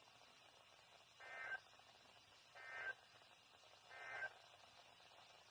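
Three short warbling bursts of SAME digital data from NOAA Weather Radio, each a fraction of a second and about 1.3 s apart, heard through a radio receiver. They are the end-of-message code that closes the emergency alert broadcast.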